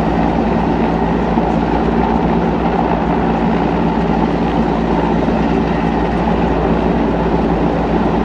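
Large Mil Mi-17-type transport helicopter hovering low overhead: loud, steady rotor and turbine noise with an even throb.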